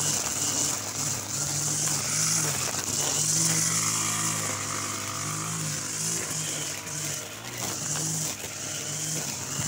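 Petrol brush cutter with nylon trimmer line running and cutting grass. The engine note swells and drops back about once a second as it is swung through the grass, under a high hiss that pulses with each sweep.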